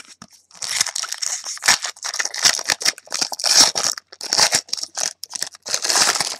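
Foil wrapper of a 2011 SP Authentic football card pack being torn open and crinkled by hand: a run of irregular crackling rustles starting about half a second in.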